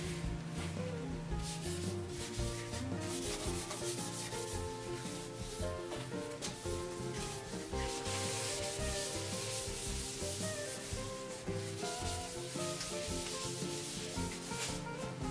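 Cloth rag rubbing oil stain into bare pine boards in repeated wiping strokes, over background music.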